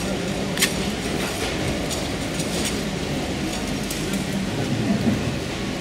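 A steady low rumble of a passing heavy vehicle, with scattered light clicks and rattles over it and one sharper click about half a second in.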